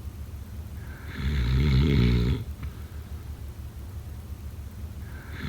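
A person snoring: one loud snore about a second in, lasting just over a second, then softer breathing noise, with the next snore starting right at the end.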